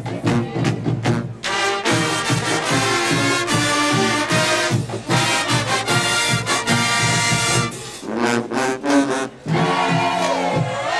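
Marching band brass section playing, with sousaphones under an even beat. Long held chords in the middle give way to short punched notes near the end.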